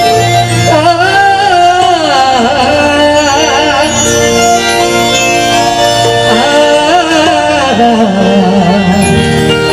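A woman singing a Marathi devotional song over sustained instrumental accompaniment and a low drum pulse. Her voice comes in twice with ornamented, wavering runs, and the accompaniment carries on between the phrases.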